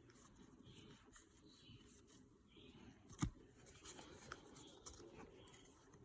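Faint rustling and sliding of baseball trading cards being flipped through by hand, with small ticks and one sharper tap about three seconds in.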